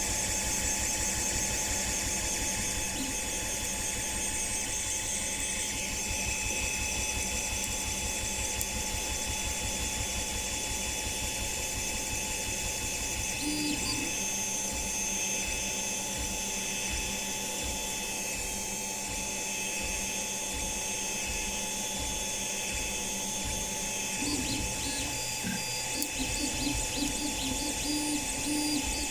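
3D printer running: its stepper motors whine at held pitches that shift every few seconds as the print head changes moves, over a steady mechanical hum.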